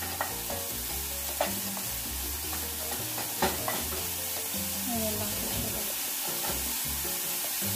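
Sliced mushrooms and onion sizzling in olive oil in a frying pan, stirred with a wooden spoon, with a few light clicks of the spoon against the pan. Background music plays underneath.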